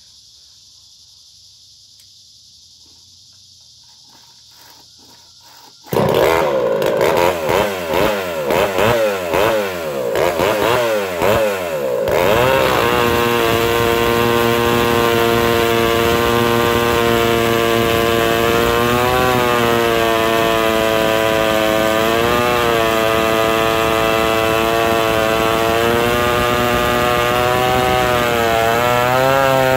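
Craftsman two-stroke chainsaw with a homemade dual-port muffler. It comes in suddenly about six seconds in and revs up and down for several seconds. It then holds at full throttle, cutting into a log, with its pitch dipping briefly a few times as the chain bites.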